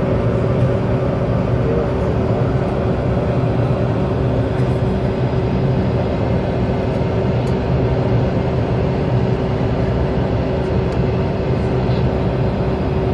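Jet airliner's engines running at low taxi power, heard from inside the cabin: a steady hum with a few held tones over a constant rush.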